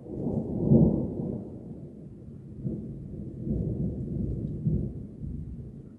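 Rolling thunder rumbling, loudest about a second in, swelling again a few seconds later, then dying away near the end.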